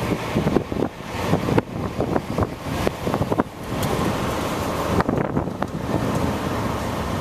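Wind buffeting the microphone of a camera in a moving car, over the steady rumble of the car driving. Irregular crackling thumps in the first few seconds, then a smoother rush.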